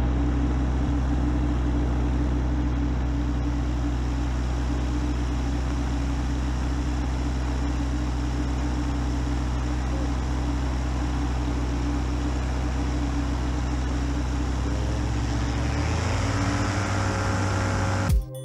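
Rotax 912 iS flat-four engine and propeller of an Airwolf paratrike running steadily on the ground, its pitch rising near the end as it speeds up.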